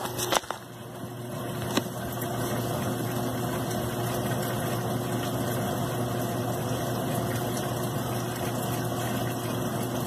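Brastemp BWL11 top-loading washing machine filling with water, topping up to a higher water level. After two sharp clicks near the start, the inflow swells over about two seconds and then pours in steadily over a steady low hum.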